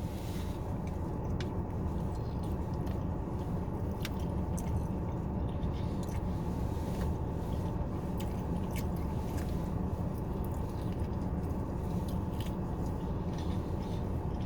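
A person chewing food close to the microphone, with faint scattered mouth and fork clicks, over a steady low hum.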